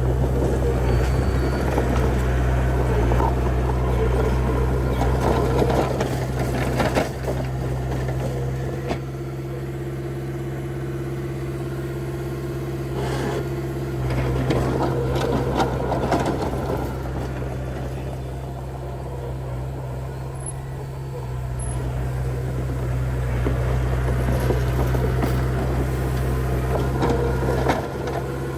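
Diesel engine of earth-moving machinery running, with metal rattling and clanking over a steady low drone. It is louder at first, eases off for several seconds, then picks up again twice as the machine works.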